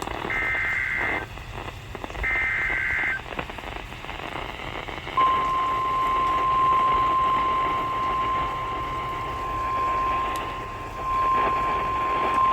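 Emergency Alert System SAME header data: two short, buzzy two-tone bursts about a second apart. After a pause of about two seconds, the 1050 Hz weather-radio warning alarm starts about five seconds in and holds as one steady high tone, over constant radio hiss.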